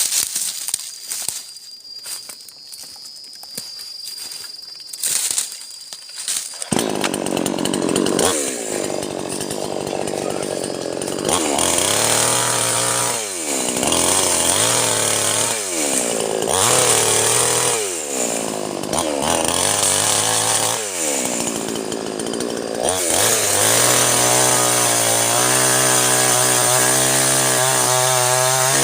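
A few clicks and knocks, then a mini chainsaw starts about a quarter of the way in. Its motor speed drops and climbs again several times, and near the end it runs steadily at full speed.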